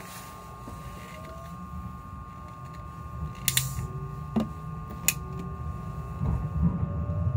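Meitetsu μSKY electric train heard from inside the car as it gathers speed: traction motor tones slowly rising in pitch over a running rumble that grows louder, with three sharp clicks in the middle.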